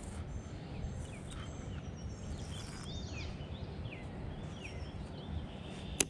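Birds chirping in short, quick notes over a steady low rumble, with a single sharp click near the end.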